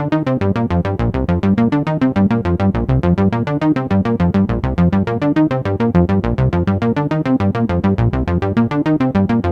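Korg Minilogue XD analog synthesizer playing a fast sequenced pattern of short, plucky notes, about eight a second, with the pitch stepping up and down.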